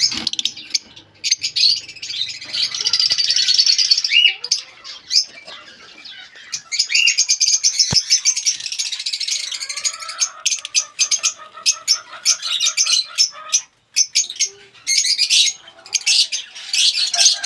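Lovebirds chattering with rapid, high chirps and squawks. Partway through, a lower pulsed call joins them for a few seconds.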